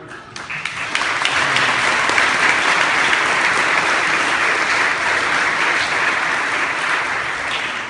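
A congregation applauding a speaker as he is introduced. The clapping starts about half a second in, is at full strength within a second, holds steady, and eases off near the end.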